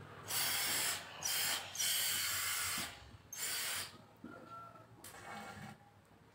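A clothes iron worked over a folded cotton t-shirt gives four hissing bursts in the first four seconds, the longest about a second. Then comes the quieter rustle of hands smoothing the fabric.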